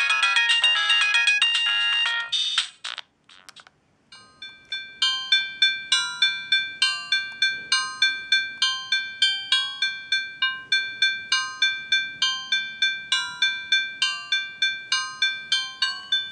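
Siemens A31 mobile phone ringtones played through the phone's small speaker. A dense, busy tune cuts off about three seconds in, and after a second's pause another starts: quick short notes, about three a second, over a held pair of high tones.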